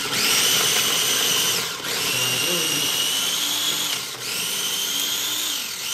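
Countertop blender running in three bursts of about two seconds each, its motor whine rising as each burst starts, grinding whole spices, shallot and garlic toward a paste.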